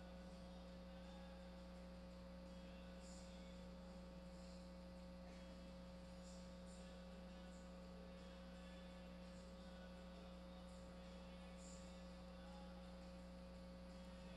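Near silence with a steady electrical hum, and a few faint, short high-pitched chirps now and then.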